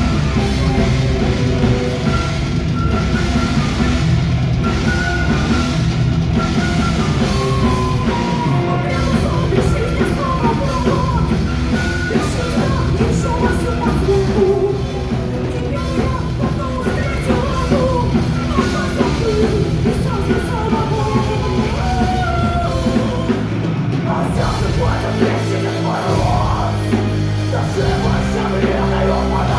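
Loud heavy rock music with distorted guitars and a drum kit; the band's low end changes to a stop-start pattern about twenty-four seconds in.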